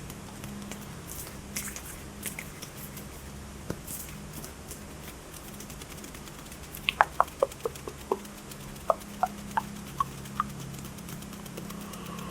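ASMR hand sounds: soft rustling of hands, then about a dozen sharp clicks in quick succession from about seven seconds in, over a steady low hum.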